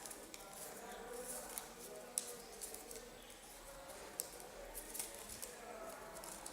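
Faint handling of stiff paper: the folded cardstock parts of a Foldscope rustling and ticking as they are turned and pushed into their slots. The clicks are small and irregular, with the sharpest about two seconds in and about four seconds in.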